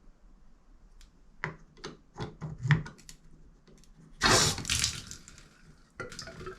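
Small clicks and knocks of parts being handled at a Moen shower valve, then water from the shower valve rushing out loudly in two surges about four seconds in, with the hiss of running water starting again near the end.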